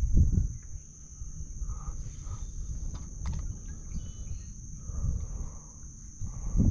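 Wind buffeting the microphone in low, uneven gusts, over a thin, steady high-pitched whine. A couple of faint clicks come a little over three seconds in.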